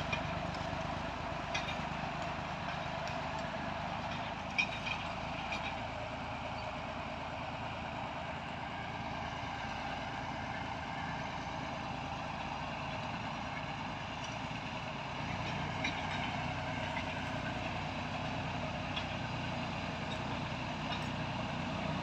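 Engine of a 1964 Massey Ferguson 35 tractor running steadily while it pulls a plough through the field. It grows a little louder in the second half as the tractor turns at the end of the run. There is a brief clank about four and a half seconds in.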